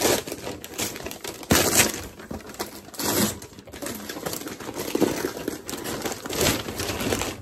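A paper gift box's lid being ripped open and its wrapping paper crinkling and tearing, in irregular rustling bursts, loudest about a second and a half in.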